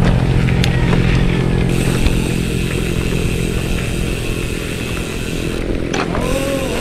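A small engine running steadily and fading away over the first couple of seconds, then low rumbling noise, with a brief rising-and-falling squeal near the end.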